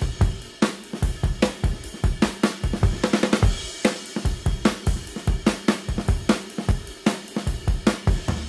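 Background music led by a drum kit, with a steady beat of snare, kick drum and hi-hat or cymbal hits.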